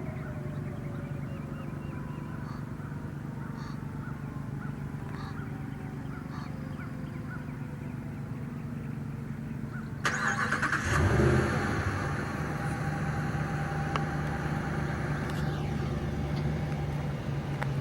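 Federal Signal 2001-SRN electromechanical siren winding down, its tone sliding slowly lower over a steady low hum. About ten seconds in a sudden, louder rush of noise cuts in, followed by what sounds like a car engine starting and then running steadily.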